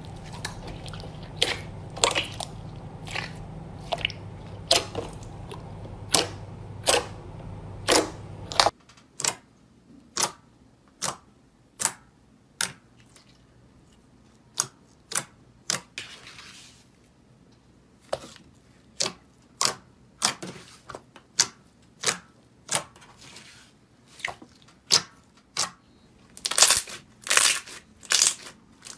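Clear red slime being pressed and poked by hand, giving sharp wet pops and clicks about once or twice a second, with a few longer, louder squelches near the end. A low hum sits under the first third and stops suddenly.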